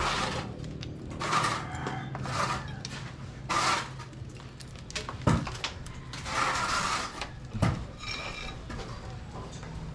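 Several rough scraping or rubbing strokes at irregular intervals, with two sharp knocks, about five and seven and a half seconds in.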